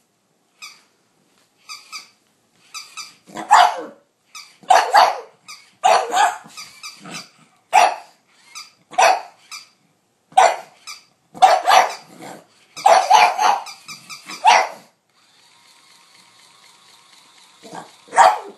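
Pug barking at a stuffed toy in a play bow: short, loud barks, singly and in quick clusters, which break off near the end for a few seconds before one more bark.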